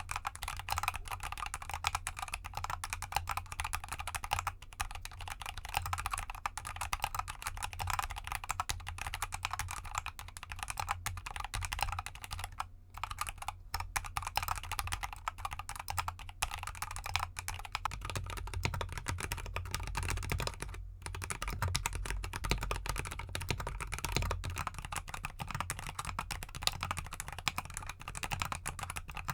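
Continuous fast typing on a GK64X mechanical keyboard with Gateron Cap Gold linear switches and XDA keycaps in an anodized aluminium case: a dense stream of key clacks. About eighteen seconds in, the low thud of the keystrokes grows heavier.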